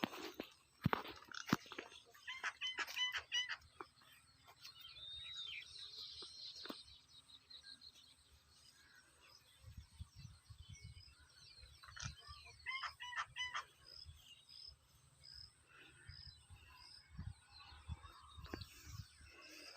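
Birds calling: two runs of short repeated pitched notes, one about two seconds in and one about thirteen seconds in, and a single arching high call between them. A faint high note then repeats about once a second through the second half, with a few clicks and some low rumble.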